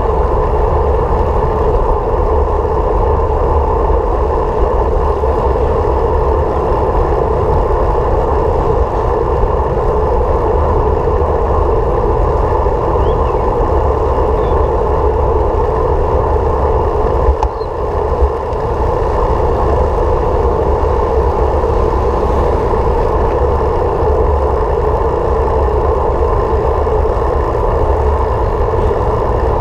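Steady running noise of a vehicle cruising at constant speed: engine and road or wind noise, dipping briefly about seventeen seconds in.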